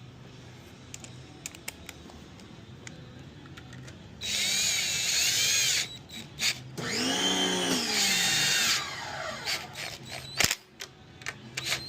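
Power drill run in two bursts, its motor pitch rising and falling with the trigger and dropping as it spins down near the end of the second burst. Scattered clicks and knocks of tools being handled.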